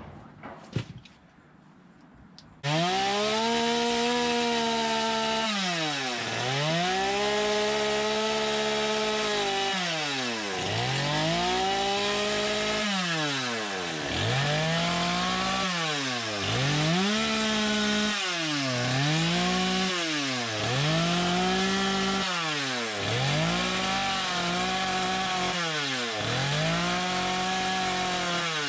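Stihl MS250 two-stroke gas chainsaw cutting wood, its engine opened up to a high steady whine and eased off again every second or two, so the pitch rises and falls over and over. It comes in suddenly about three seconds in, after a few faint knocks.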